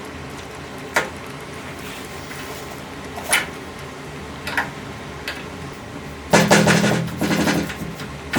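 A few light, separate clicks, then about six seconds in, louder music with a steady low tone and quick percussion starts.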